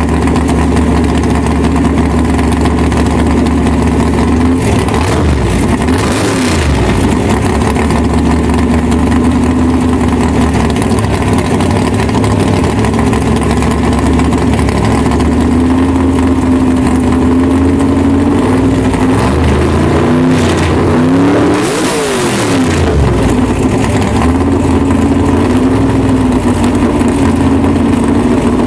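A supercar's engine idling close by, its pitch wavering slightly as the revs shift. Twice, about six seconds in and again near twenty-one seconds, rising and falling engine sounds pass across it.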